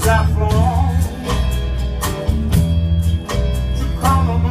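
A live band plays a song on acoustic guitars and drums over a steady bass line. A melody line bends in pitch about the first second in and again near the end.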